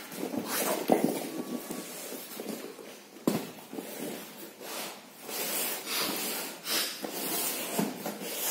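Long cardboard shipping boxes being shifted and slid across one another on a tiled floor: a couple of knocks, then several scraping slides of cardboard on cardboard.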